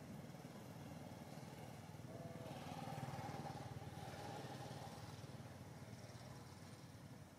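Faint hum of a passing motor vehicle's engine, swelling from about two and a half seconds in and fading toward the end.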